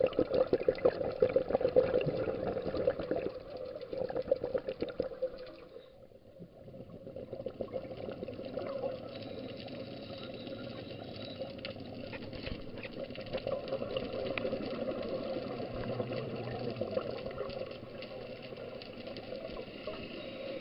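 Underwater bubbling from a scuba diver's regulator: a loud gurgling rush of exhaled bubbles over the first few seconds, a short lull about six seconds in, then steadier, softer bubbling and crackle.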